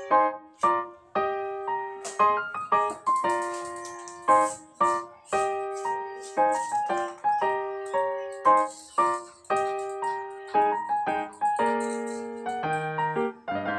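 Background piano music: a light melody of separate struck notes, each fading before the next.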